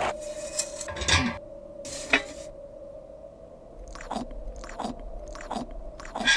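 Cartoon sound effects: a few short crunching, rustling noises, then four short sounds each dropping in pitch, about one every 0.7 s, over a steady hum.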